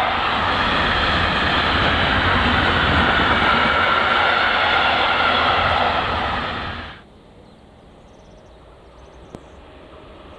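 Container freight wagons rolling past on the rails, a loud steady rumble and clatter of wheels on track. It cuts off suddenly about seven seconds in, leaving a faint background hum with one small click near the end.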